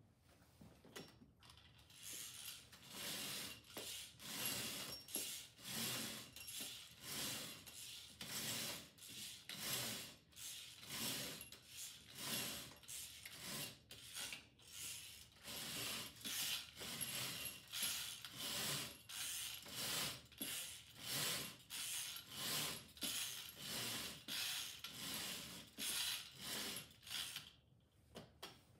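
Roman shade clutch and bead chain ratcheting in quick repeated strokes, about two a second, as the FashionWandPRO grip handle is worked to raise or lower the shade. The strokes start about two seconds in and stop shortly before the end.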